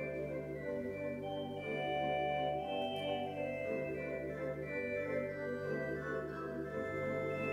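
Organ playing a Christmas noel: held chords over a bass line that steps to a new note every second or so, with a slow melody on top.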